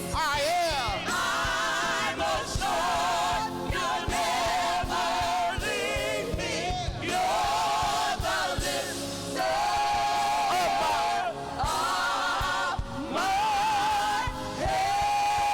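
Gospel choir and singers with band accompaniment, sung phrases with vibrato that swell and break every second or two.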